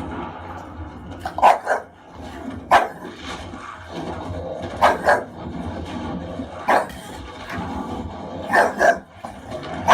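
A dog barking: short single barks and quick pairs of barks every second or two.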